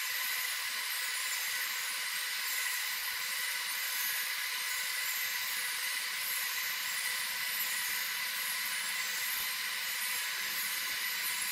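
Steady mechanical hiss with a faint, even high whine from the motorized bicycle-wheel mechanisms of a kinetic sculpture running. There are no distinct knocks or changes.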